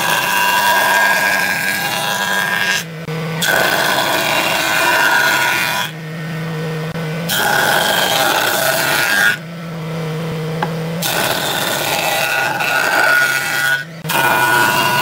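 Jointer planing a wooden beam in repeated passes: the cutterhead cuts through the wood for two to three seconds at a time, about four times, with the machine humming freely in short breaks between passes.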